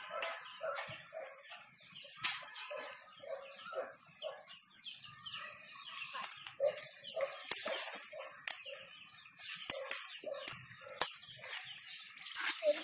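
Small birds chirping over and over, with sharp pops and crackles from anchovies frying in hot oil.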